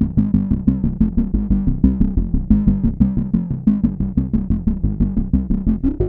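Analogue synthesizer (Arturia MatrixBrute) playing a fast repeating bass sequence, about six short plucked notes a second. The sound runs through an Erica Synths Black Polivoks eurorack filter, which gives a gritty, distorted edge to the resonance.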